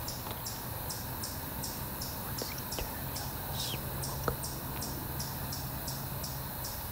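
Insects chirping in a steady rhythm, about three chirps a second, over a low steady hum. A single short click sounds a little over four seconds in.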